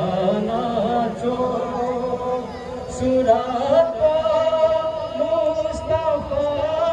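Several voices singing together with long held notes, a man's lower voice beneath higher ones.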